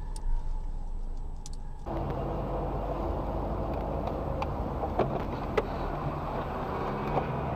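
Engine and road noise inside a moving car, picked up by a dash camera, with a few scattered clicks. About two seconds in, the noise abruptly becomes louder and fuller as one recording gives way to another.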